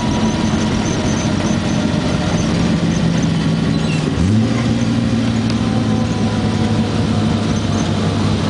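Ford Falcon driving, with a steady mechanical drone of engine and road noise that the owner suspects is a worn wheel bearing or a U-joint (cruceta). The tone steps up sharply about halfway through, then holds steady.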